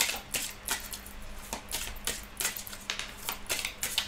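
A deck of cards being shuffled by hand, overhand: a quick, irregular run of sharp card clicks and slaps, about four a second.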